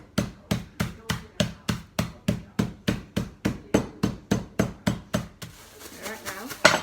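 A rolling pin pounding a bag of Oreo cookies on a worktop to crush them: a quick, even run of thumps, about three and a half a second, that stops about five seconds in. A single loud sharp knock follows near the end.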